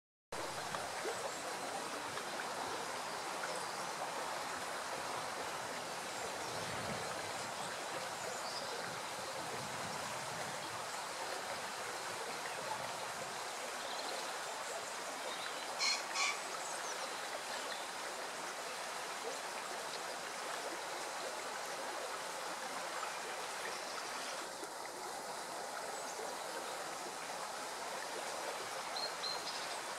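Steady rushing of running water, with two short, sharp high notes about halfway through and a few faint bird sounds.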